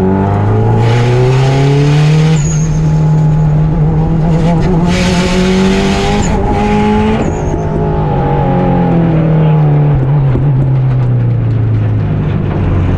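Rally car engine running hard, its pitch climbing and dropping as the car accelerates and slows through a stage. Two stretches of loud hiss come over it, about a second in and again about five seconds in.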